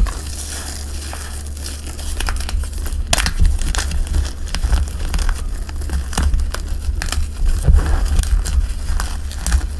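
Dried cornstarch and gym chalk being crushed and crumbled, a continuous run of crisp crackling crunches with sharper snaps scattered through.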